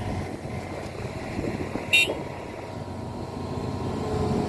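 Hitachi ZX210F excavator's diesel engine running steadily under load, with a single short sharp clank about two seconds in.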